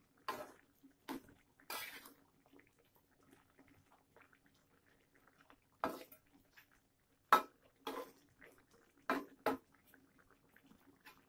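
Metal spatula knocking and scraping against a wok as a chicken stir-fry is stirred. The strokes come in scattered knocks, three in the first two seconds and then a run of them between about six and ten seconds.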